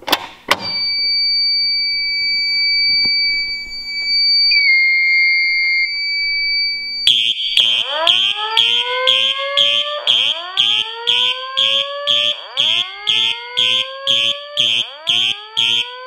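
Simplex pull station snapping down with two clicks, then a steady high electronic alarm tone. About seven seconds in, a Simplex electronic horn starts sounding in march time, about two blasts a second, over a repeating rising whoop tone from the voice-evacuation speakers.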